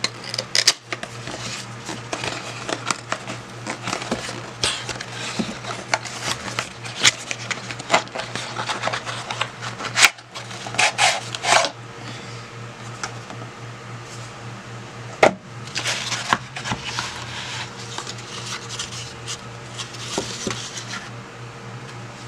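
A cardboard retail box being opened and handled: irregular scraping and rustling of cardboard and paper, with sharp taps and clicks as the box and its inner tray are handled, over a steady low hum.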